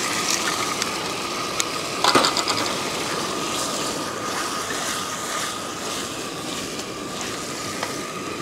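Stir-fry sizzling in a carbon steel wok, with a wooden spatula clacking and scraping against the wok as it is stirred and tossed; a quick rattling run of clicks comes about two seconds in.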